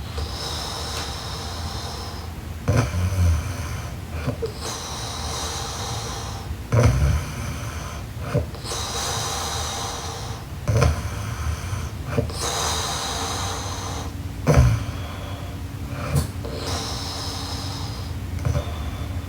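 A woman snoring in her sleep, about one snore every four seconds. Each is a short, loud, low rasp followed by a longer airy breath.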